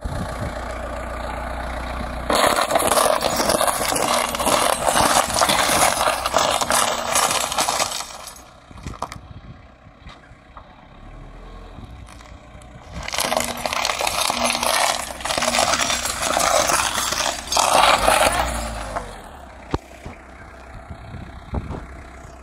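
Van tyres rolling over a row of plastic wall clocks, crushing their frames and glass fronts with a dense run of crunching and cracking, over the van's running engine. The crunching starts about two seconds in, eases off after about six seconds, and comes again for another six seconds near the middle.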